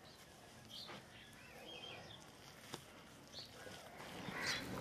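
Faint chirping of small birds and clucking of chickens, with a single sharp click near the middle and the calls growing louder near the end.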